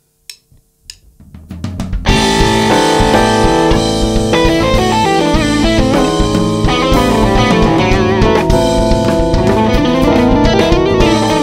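Small live band of electric bass, keyboard, drum kit and electric guitar playing together. A few sharp clicks come first, and the full band comes in loudly about two seconds in.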